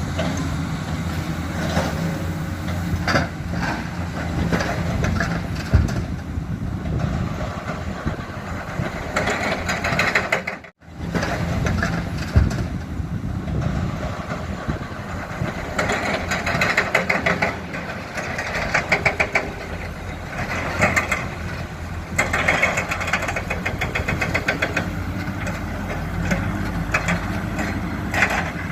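Heavy diesel engine of a Komatsu hydraulic excavator running steadily, with repeated bursts of rattling and clattering as waste rock is dug and loaded into a dump truck. The sound cuts out briefly about eleven seconds in.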